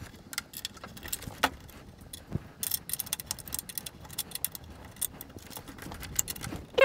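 Small metallic clicks and clinks of a ring spanner on the nuts and steel arms of a TV wall bracket as the nuts are tightened, coming in irregular runs with a quick flurry about three seconds in.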